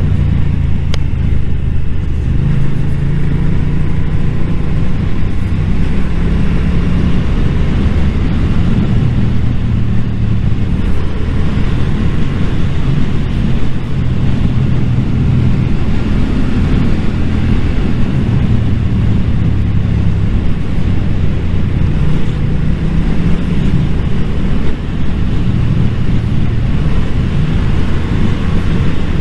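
Motorcycle engine running under way at road speed, its engine note shifting up and down with the throttle and gears, with a steady rush of wind and road noise.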